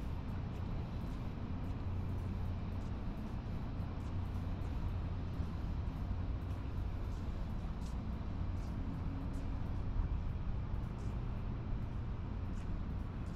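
Steady low rumble of outdoor background noise, with faint clicks now and then.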